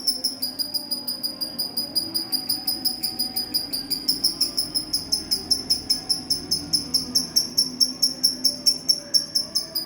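Lovebird singing a long, unbroken run of rapid high chirps, about five or six a second, in the 'semi konslet' song style.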